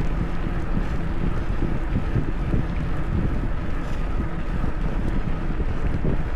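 Wind buffeting the Insta360 X4 camera's microphone on a moving bicycle: a steady, gusty low rumble.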